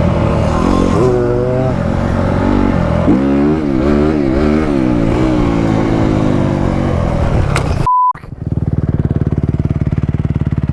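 Dirt bike engine revving up and down through the gears for about seven seconds. It breaks off into a short, steady beep in sudden silence, then runs steadily at low revs with an even pulse.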